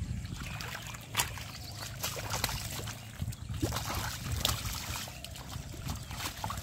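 Hands groping and scooping in shallow muddy water, sloshing and squelching, with scattered short splats and clicks.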